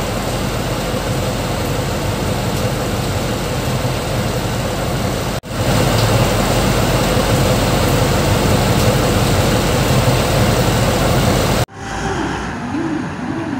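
Caterpillar 793C haul truck's V16 diesel engine running steadily, heard up close from beneath the truck; the level steps up at a cut about five seconds in. Near the end it gives way to quieter engine sound from haul trucks moving about.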